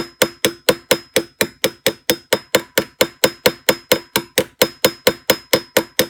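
Hammer tapping steadily on a 14-gauge wire ball-head rivet to set it, about four blows a second, each with a brief metallic ring.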